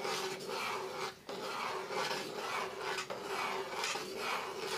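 Metal spoon scraping around the inside of an aluminium pot while stirring thick rice porridge, in a steady run of about two strokes a second.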